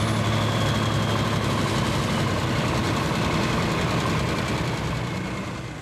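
Modified John Deere super stock pulling tractor engine running steadily at idle while the tractor sits still, with a faint high whine slowly falling in pitch. The sound fades out near the end.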